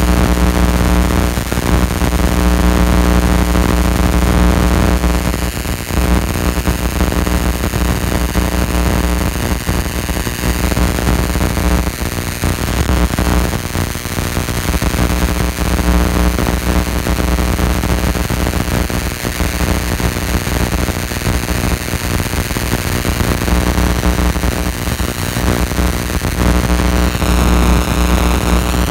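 Loud electrical buzz from high-voltage supply equipment: a steady low hum with several overtones over a hiss. The low hum drops out briefly twice, about twelve seconds in and again a few seconds before the end.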